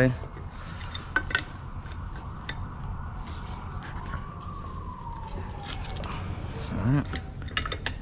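Scattered metal clicks and clinks of a wrench turning the nuts and bolts on a butterfly valve assembly to loosen them, over a steady low hum. A faint tone that falls in pitch runs through the middle.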